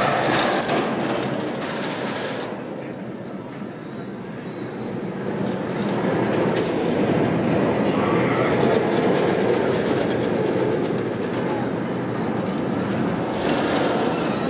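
Steel roller coaster train running along its track with a steady rolling noise that dips a few seconds in, then swells again.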